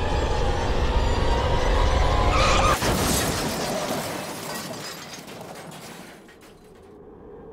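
Staged car crash with glass shattering, from a texting-while-driving safety ad: loud music and rumble cut off by a sudden crash nearly three seconds in, which then fades away over the next few seconds.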